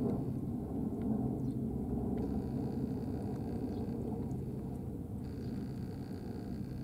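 A steady low mechanical rumble with a hum runs throughout. Over it come a few faint crunches of a cat chewing dry kibble.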